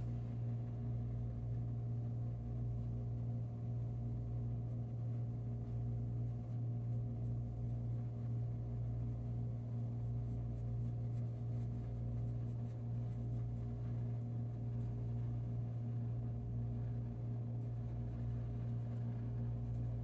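A steady low hum with a slow throbbing underneath it, over faint scratchy strokes of colored-pencil blending on paper.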